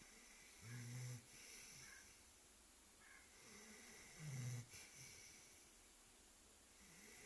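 Labrador retriever snoring in its sleep: two quiet, low snores, about a second in and again about four and a half seconds in, with soft breathing between them.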